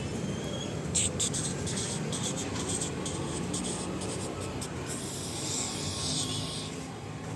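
A run of short, rasping scrapes, followed by a longer hissing rub, over a steady low background hum.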